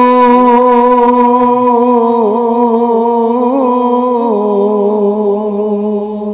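A man's voice singing a Punjabi Sufi kalam, drawing out one long held note that steps down slightly about two seconds in and again about four seconds in, then fades near the end.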